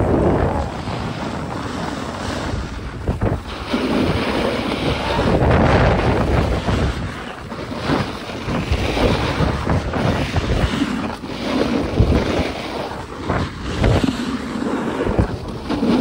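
Wind buffeting the microphone: an uneven rushing noise that swells and eases every few seconds.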